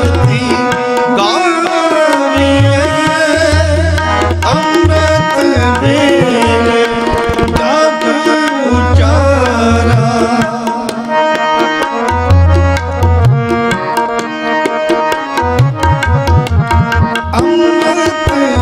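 Harmonium and tabla playing a kirtan interlude: sustained harmonium reed chords and melody over tabla, with deep, swelling bayan bass strokes. The tabla strokes quicken into a fast, dense roll in the second half.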